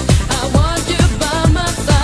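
1990s eurodance track: a four-on-the-floor kick drum about twice a second under a synth melody.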